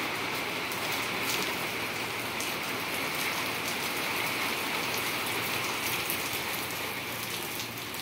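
Steady rain falling on tiled courtyard paving, an even hiss with scattered ticks of single drops striking. The rain is quite heavy.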